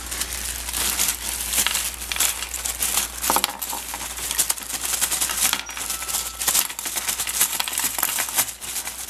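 Small plastic Heroclix miniature figures clattering and clicking against each other in a continuous stream of little knocks, with a bag crinkling, as the figures are rummaged and tipped out of the bag.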